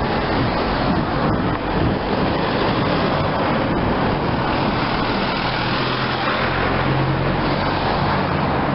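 Steady road traffic, cars and a truck passing on a busy street close by, with a low engine hum that grows stronger about five seconds in and holds for a few seconds.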